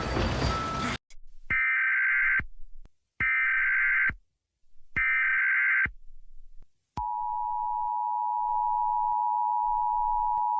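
Emergency Alert System tones. After a short noisy burst at the start come three bursts of screechy SAME header data, about a second each. About seven seconds in, the two-tone attention signal begins: a steady, unbroken tone.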